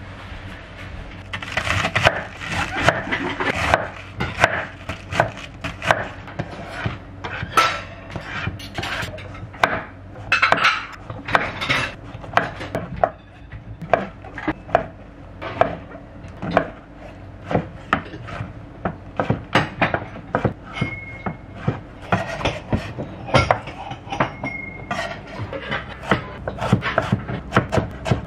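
Chef's knife cutting vegetables on a wooden cutting board: a king oyster mushroom, then a carrot cut into thin strips. Many quick, uneven knocks of the blade on the board.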